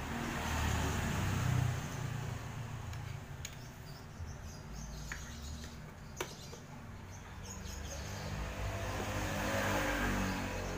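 Backlight lamp connectors being pulled from an LCD TV's inverter board: a few sharp clicks, the loudest about six seconds in, over a low background rumble like passing traffic.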